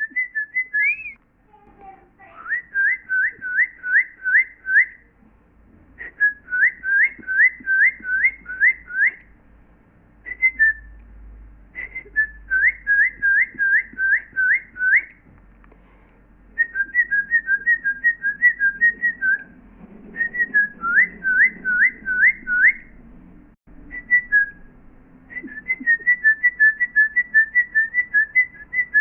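Birdlike whistling in repeated phrases: runs of five or six quick upward-sliding notes alternating with fast two-note trills, each phrase lasting two to three seconds with short pauses between.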